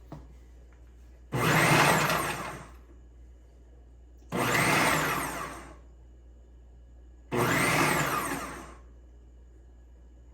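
Ninja Professional XL food processor chopping an onion on its Chop program: the motor and blade run in three pulses about a second and a half each, spinning up and winding down, with short pauses between.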